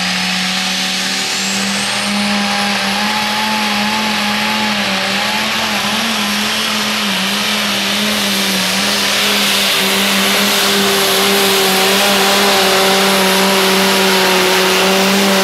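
Super Stock pulling tractor's turbocharged methanol engine held at full throttle through a pull, running at a steady high speed. A high turbo whine rises over the first few seconds and then holds.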